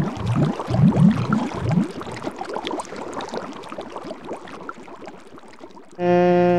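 Bubbling water with low gurgling glugs, loudest at first and fading away over several seconds. Near the end, music with held, steady tones starts suddenly.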